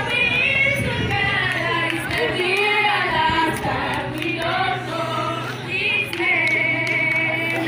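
A choir, a group of voices singing together in long held notes that rise and fall in pitch.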